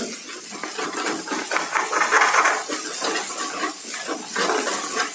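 Metal spatula scraping and stirring in a metal pan over a steady sizzle, as beaten egg whites fry and are broken up into crumbly scrambled bits.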